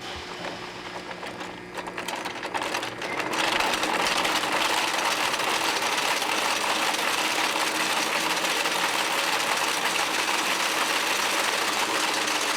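Wire-harness braiding machine starting up and running, its bobbins weaving a cotton braid over the harness. It builds up over the first few seconds, then settles into a steady, fast mechanical rattle.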